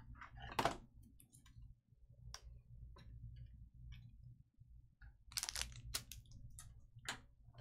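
Scattered light clicks and taps over a low steady hum, with a louder click about half a second in and a quick cluster of clicks around five and a half seconds.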